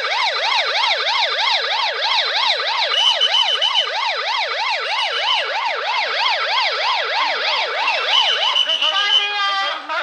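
Police car siren on its fast yelp setting, a rising-and-falling wail at about three to four sweeps a second. About nine seconds in it breaks briefly into a different stepped tone, then goes back to the fast sweep.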